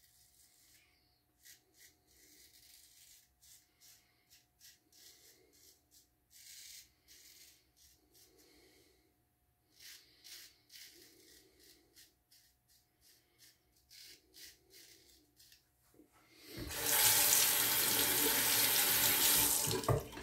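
Faint, short scrapes of a Frederick Herter 7/8 full-hollow straight razor cutting stubble through lather, stroke after stroke. About sixteen seconds in, a tap is turned on and water runs loudly into the sink for about three and a half seconds, then stops.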